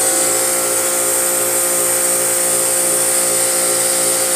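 Pressure washer running steadily, a constant motor whine under a high hiss of water spray, washing out a truck radiator after it has soaked in cleaning solution.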